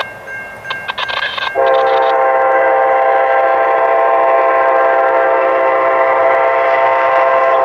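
Locomotive air horn of an Amtrak GE P40DC sounding for a grade crossing: a loud, steady chord blast that begins about a second and a half in and is held without a break.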